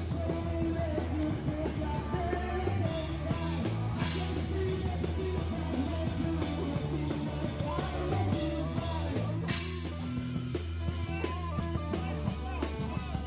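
Music: a song with a singing voice over a steady bass line.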